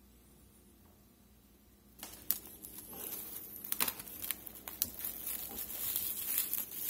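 Plastic cling wrap crinkling and crackling with sharp irregular clicks as it is stretched and pressed over a glass baking dish, starting about two seconds in after a quiet moment.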